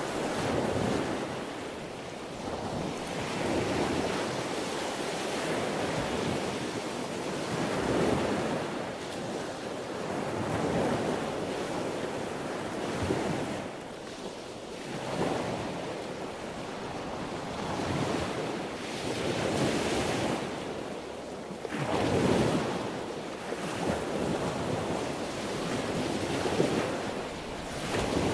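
Sea waves breaking and washing ashore: a steady rush of surf that swells and eases every few seconds.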